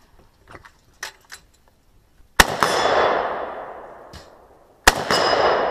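AK-pattern rifle firing two single shots about two and a half seconds apart, each one a sharp crack followed by a long echo that fades over about two seconds.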